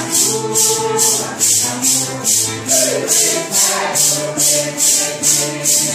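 Santo Daime hymn: several voices singing together over maracas shaken on a steady, even beat.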